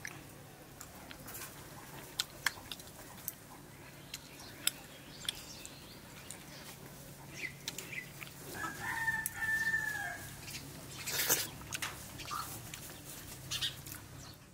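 A rooster crows once, a long held call about nine seconds in that drops in pitch at the end. Scattered short clicks and smacks, with a louder noisy burst about eleven seconds in, run around it as people eat by hand.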